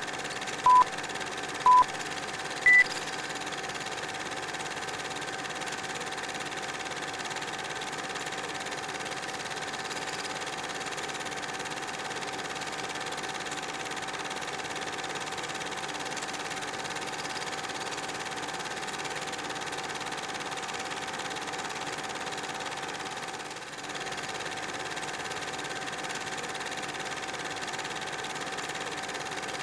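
Film countdown-leader beeps: two short beeps a second apart, then a higher, shorter final beep. After it comes a steady mechanical whirring and clatter like a film projector running.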